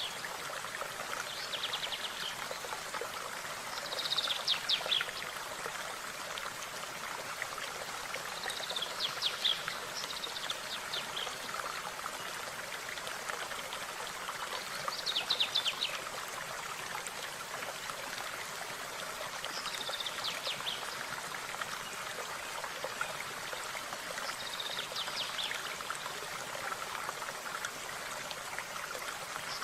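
A stream running steadily, with a small bird singing a short, rapid, high phrase about every five seconds, seven times in all.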